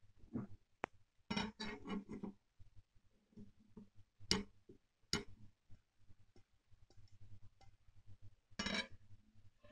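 Faint handling sounds of a steel ersatz bayonet hilt turned in the hand: scattered sharp clicks and ticks, with short bursts of rubbing and clatter near the start and near the end.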